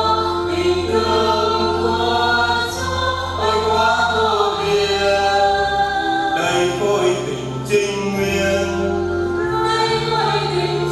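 Choir singing a Vietnamese Catholic hymn of thanksgiving to God, with held low accompanying notes underneath.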